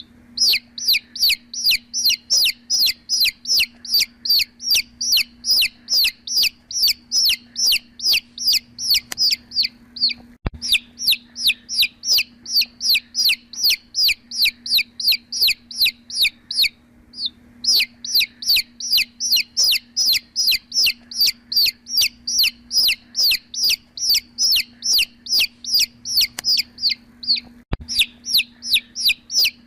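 Chicken chicks peeping steadily, short high falling peeps about three a second, with brief pauses about ten and seventeen seconds in. A steady low hum runs underneath, and two sharp clicks sound about ten and twenty-eight seconds in.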